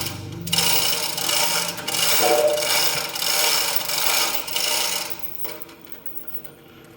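Harsh, continuous rasping of a hand tool working on a part, like filing or sawing, from about half a second in until it fades about five seconds in.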